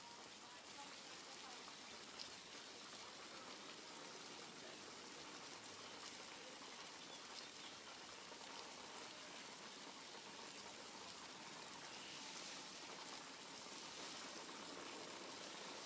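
Faint, steady hiss of outdoor background noise, with a few faint ticks.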